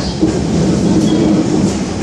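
Inside a moving MTR SP1900 electric train: steady running rumble of wheels on rail, with a low steady hum underneath.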